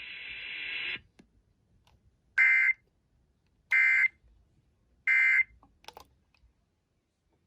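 Emergency Alert System data bursts: three short, identical, buzzy digital tone bursts about 1.3 s apart, the end-of-message signal of a broadcast tornado warning. A second of hiss before them cuts off.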